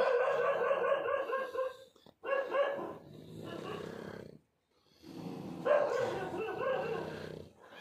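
A dog vocalising in three drawn-out stretches of about two seconds each, with short breaks between them.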